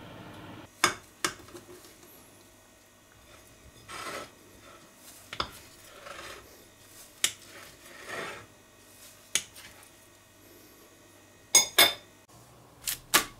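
A metal knife cutting and serving a baked sponge cake on a plate: soft scraping strokes with sharp clinks of metal against the plate, a quick pair of clinks near the end.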